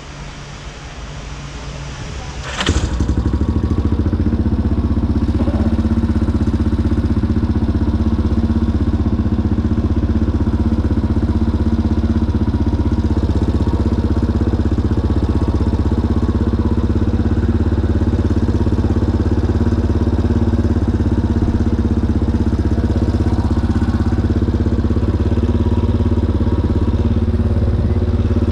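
Yamaha Raptor 350 quad's single-cylinder four-stroke engine starting up suddenly about two and a half seconds in, then running steadily at idle.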